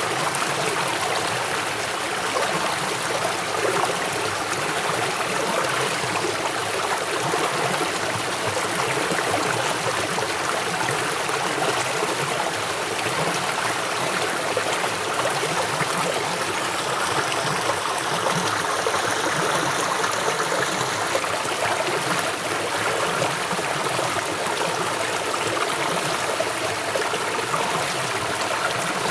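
River water flowing swiftly: a steady, unbroken rush of moving water.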